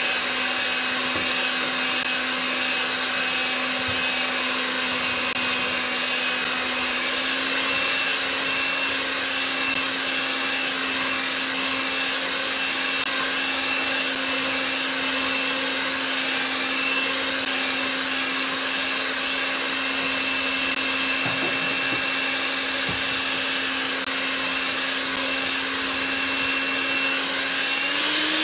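Electric hand mixer running steadily, its beaters whipping heavy cream and melted chocolate in a glass bowl. The motor hum rises slightly in pitch about a quarter of the way in and steps up again at the very end as the speed is raised.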